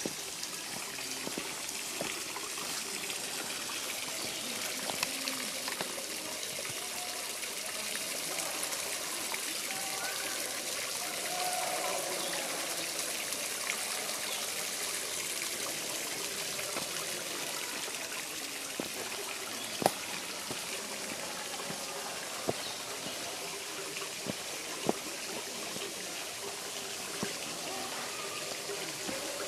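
Shallow stream trickling and splashing over sandstone ledges at the rim of a waterfall, a steady watery hiss. A few sharp clicks stand out in the second half.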